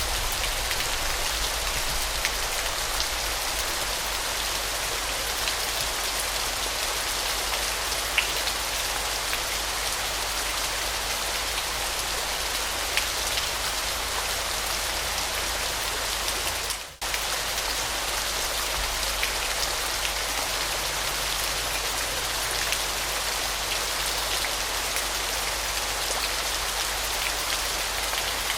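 Steady hiss of falling water splashing onto a surface, flecked with small drop-like ticks. The sound cuts out for a split second about two-thirds of the way through, then resumes.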